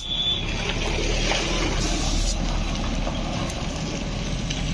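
Compressed air from a hose chuck filling a motorcycle's front tyre: a steady hiss of air over a low, even hum.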